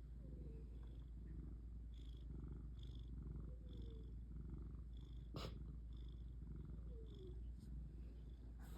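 Cat purring steadily, with a faint short falling squeak three times and one sharp click a little past halfway.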